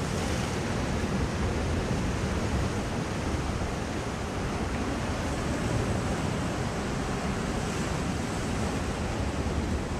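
Sea surf washing and breaking against shore rocks, a steady rushing noise, with wind buffeting the microphone.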